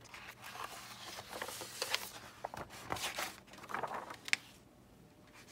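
A picture book's paper pages rustling as a page is turned, with a few sharp clicks, the sharpest about four and a half seconds in.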